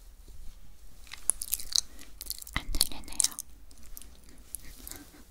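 Close-miked mouth sounds of chewing crunchy sweets: a run of sharp, crisp crunches from about a second in, thinning out to softer chewing near the end.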